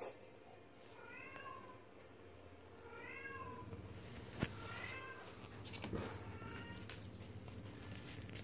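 Five-week-old Bengal kitten meowing four times, short high mews that rise and then fall in pitch, about two seconds apart. Two sharp clicks stand out, one at the very start and one about four seconds in.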